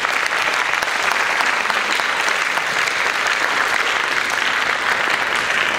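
An audience of students applauding: sustained clapping from many hands.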